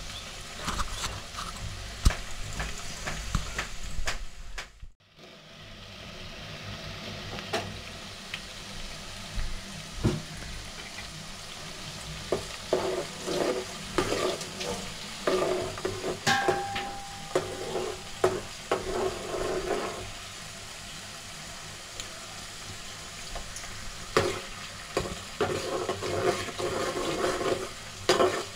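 Chopped onions and curry leaves sizzling as they fry in a metal pot, the onion tempering (phodni) for a chicken curry. There is a brief break about five seconds in. From about halfway a steel spoon stirs them, scraping and knocking against the pot many times.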